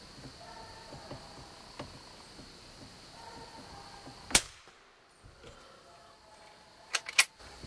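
A single sharp, loud rifle shot at a squirrel about four seconds in, followed near the end by two sharp clicks. The shooter thinks the bullet struck a limb just in front of the squirrel.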